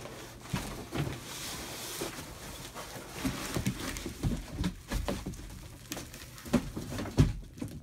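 A large cardboard mattress box being tipped and handled as the rolled, plastic-wrapped foam mattress slides out. Irregular scraping, rustling and knocking, with two louder knocks near the end.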